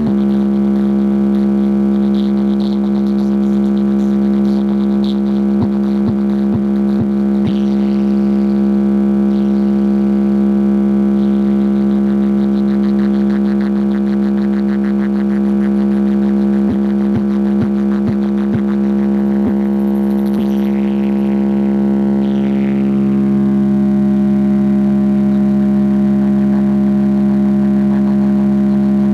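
Loud, sustained electronic synth tone held on one low pitch with a buzzy stack of overtones, played through a large DJ speaker stack for a speaker check. Short quick pitch flicks cross it a few times, and its brighter overtones fade about three quarters of the way through.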